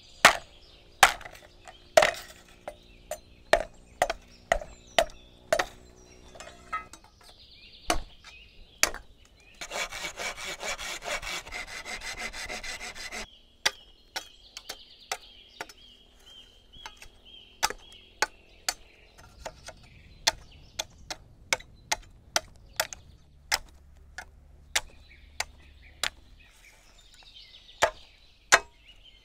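Sharp wooden knocks, about one to two a second, the early ones ringing briefly. About ten seconds in they give way to some three seconds of steady rasping, then resume.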